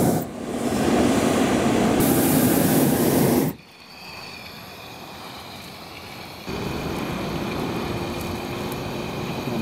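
Hot air balloon propane burner firing, a loud steady roar with a strong hiss that cuts off sharply about three and a half seconds in. A quieter steady rushing sound comes in at about six and a half seconds.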